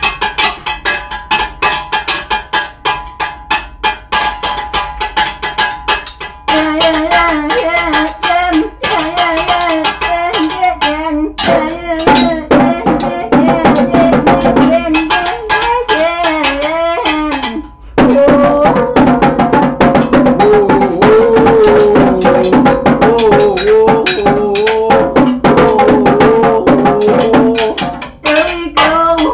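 Drum kit played with sticks, a drum and a cymbal struck in a fast, loose freestyle rhythm. From about six seconds in, a man's wordless singing wavers over the drumming.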